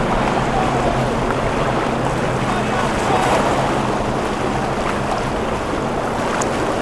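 Choppy inlet water and surf washing against the jetty rocks, with wind on the microphone and the steady low hum of an outboard motor running underneath.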